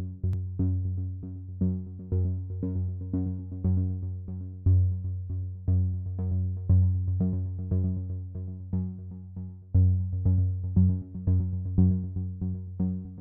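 Electronic background music: synthesizer notes repeating in a quick pulse over a steady bass.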